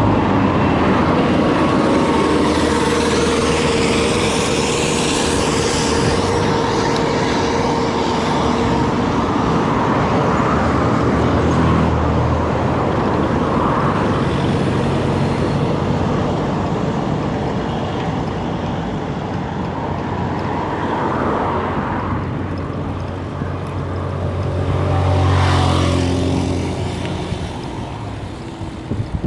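Motor vehicle engine and road noise running steadily, swelling as a vehicle passes about 25 seconds in.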